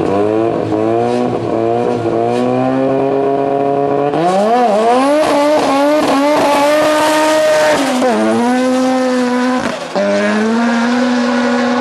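First-generation Mazda RX-7's rotary engine held on revs at the start line, then launching about four seconds in with tyre squeal from wheelspin and accelerating hard, the pitch rising, with an upshift near eight seconds.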